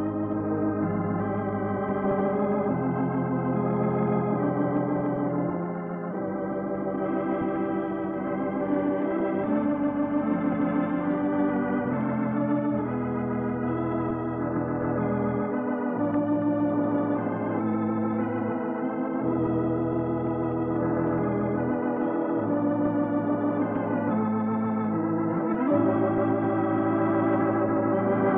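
Organ playing slow, sustained chords with a wavering vibrato: the program's closing theme music.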